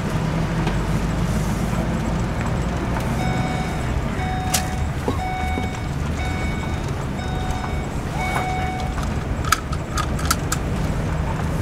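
Vehicle driving slowly, its engine and road noise a steady low rumble heard from inside the cab. A run of short electronic beeps, about eight, repeats through the middle few seconds, and a few light clicks or jingles come near the end.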